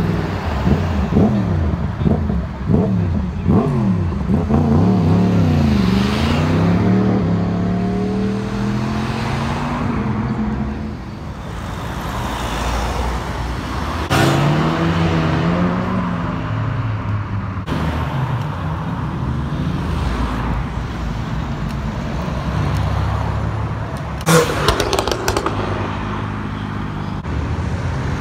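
Car engines revving hard as cars accelerate past one after another, their pitch climbing and dropping again and again. Near the end comes a quick run of sharp pops.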